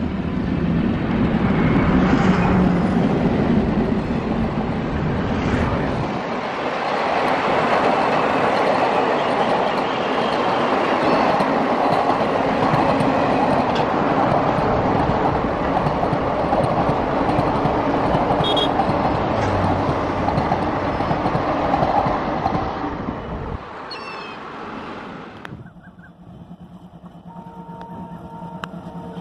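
Passenger trains running past on the line: a steady rush of wheel and carriage noise for most of the time, fading away a little before the end. Near the end comes a diesel locomotive approaching, its engine a quieter steady tone.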